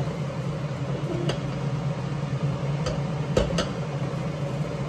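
A steady low hum with a few sharp clicks of a spatula against the pan as barnyard millet is stir-roasted in ghee.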